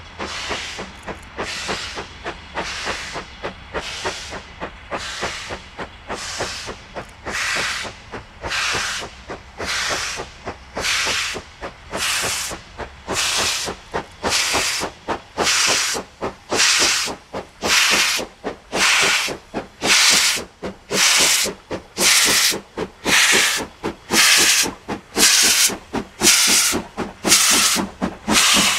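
Steam locomotive working hard with a passenger train: a steady beat of exhaust chuffs with hissing steam, growing louder and a little quicker as it draws near.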